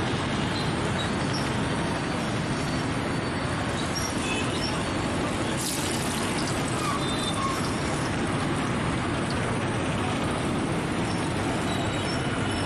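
Hot oil sizzling steadily in a large wok as battered fritters deep-fry, over a constant background hum of road traffic. A single sharp click about six seconds in.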